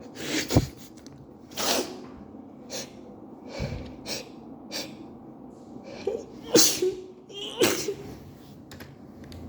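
A woman's allergic sneezing fit: several sneezes in quick succession, with quicker sniffs and sharp intakes of breath between them.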